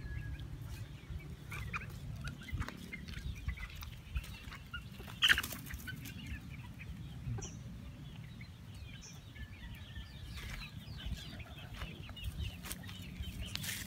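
A flock of young chickens clucking in short, scattered calls as they forage, with one sharper, louder sound about five seconds in. The owner says the birds are free of colds and sickness.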